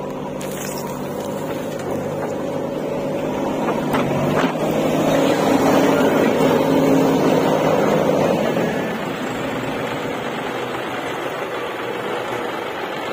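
Diesel engine of a JCB 3DX backhoe loader running steadily, growing louder for a few seconds in the middle, with two sharp knocks about four seconds in. A farm tractor's engine joins near the end as it pulls a loaded trolley.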